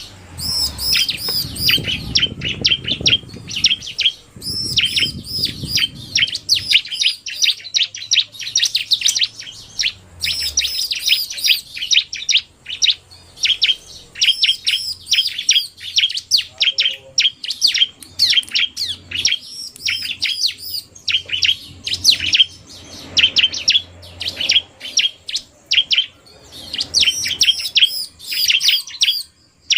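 Bar-winged prinias (ciblek) calling: a male's 'narung' chatter mixed with a female's quick calls, in fast bursts of sharp, high chirps with short pauses between them. A low rumble runs under the first seven seconds.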